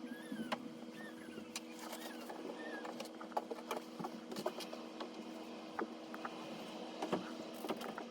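Small scattered clicks and taps from close handwork, rooting eyelashes into a vinyl reborn doll head, over a steady electrical hum. A few short squeaky glides come in the first three seconds.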